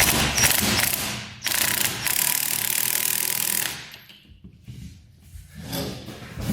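Impact wrench running in two long bursts, the second stopping about halfway through.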